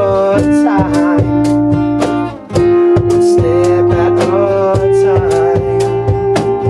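A small band playing live: electric bass and guitar under long held melody notes, with a steady beat of regular percussive hits. The music dips briefly about two and a half seconds in.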